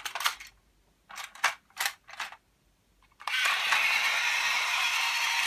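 Sharp plastic clicks and knocks as Plarail Airport Express toy train cars are set onto the plastic track. About three seconds in, the battery-powered train's motor switches on and runs with a steady whir of its gears.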